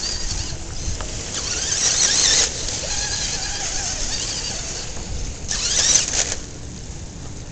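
Radio-controlled TLT crawler's electric motor and gears whining, the pitch rising and falling with the throttle as it climbs over rocks. There are two louder, higher surges of throttle, about 2 seconds in and again about 6 seconds in.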